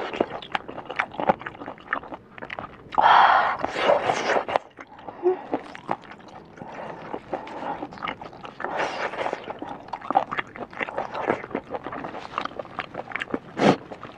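A woman panting and blowing out hard through pursed lips and sniffing, to cool a mouth burning from chili, with small wet mouth clicks and smacks between the breaths. The loudest breath comes about three seconds in.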